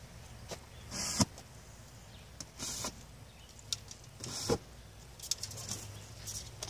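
Carbon arrows being pulled one after another out of a duct-tape-wrapped target block: three short scraping pulls about a second and a half apart, the first ending in a sharp pop, followed by a few lighter clicks.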